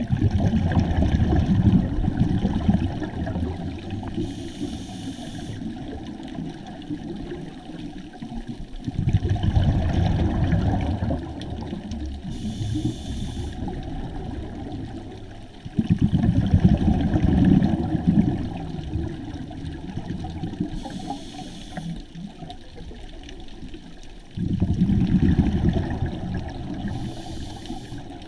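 A scuba diver breathing through a regulator underwater. Four long bursts of exhaled bubbles come several seconds apart, each preceded by a short, high hiss as air is drawn in.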